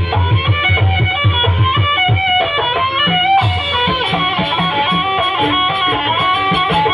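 Jaranan music played by a live ensemble: a stepping melody line over drum beats, with quick, even metallic strikes coming in about halfway through.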